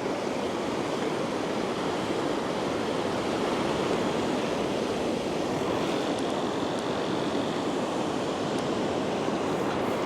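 Ocean surf washing up the beach at high tide: a steady, even rush of breaking waves.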